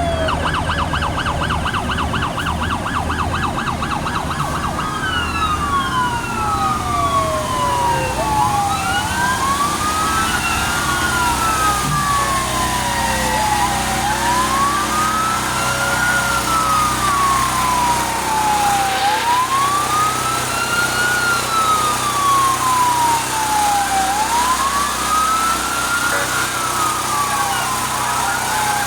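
Emergency vehicle siren, starting on a fast warble for the first few seconds, then a wail rising and falling about every five seconds. A second siren overlaps it during the first half, with a low engine rumble underneath.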